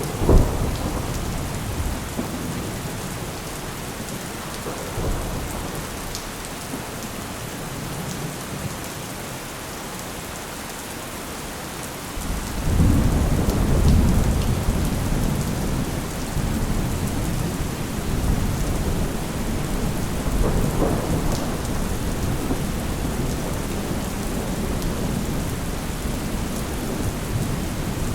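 Steady heavy rain hissing, with thunder. A sharp thunderclap comes right at the start, and a long rolling rumble of thunder begins about twelve seconds in and slowly dies away.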